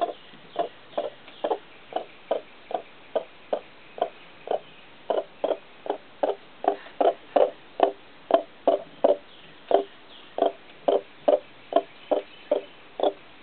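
Broody frizzle hen clucking in a steady run of short clucks, about two or three a second: the low, persistent clucking of a hen gone broody.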